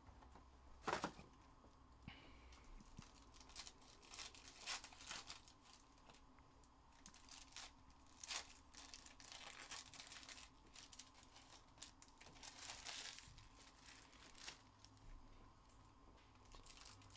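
Faint tearing and crinkling of trading-card packaging being opened by hand, in scattered short rips and rustles, the sharpest about a second in and another around eight seconds in.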